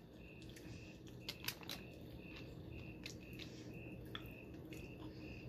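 Quiet eating sounds: chewing and a plastic fork clicking against a foam takeout container, with a few sharp clicks about a second and a half in. Behind them a faint high chirp repeats steadily, two or three times a second.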